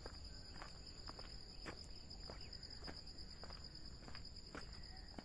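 Insects trilling in a steady, high-pitched chorus, with soft ticks and rustles about twice a second.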